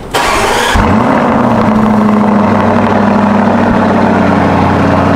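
Lamborghini Urus's twin-turbo V8 starting up. It gives a loud flare in the first second, then settles into a steady idle.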